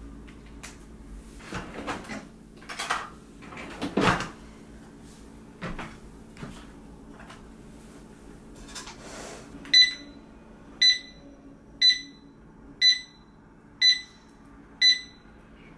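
Under-desk walking-pad treadmill giving six short electronic beeps, evenly spaced about a second apart, starting about ten seconds in. Before them come knocks and rustling of things being handled and set down, the loudest about four seconds in.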